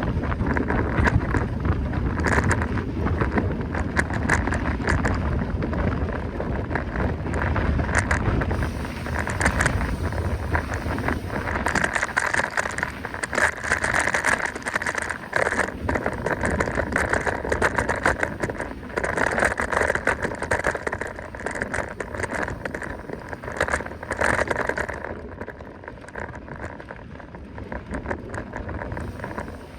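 Mountain bike ridden over a rough trail: the bike rattles with many quick clicks and knocks, and wind buffets the microphone with a heavy low rumble that eases off about twelve seconds in.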